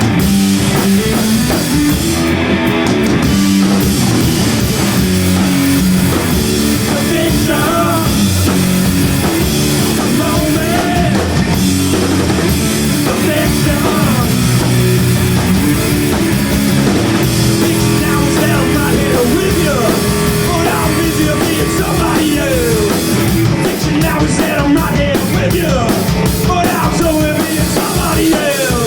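A rock band playing live, with guitars and a drum kit, loud and continuous.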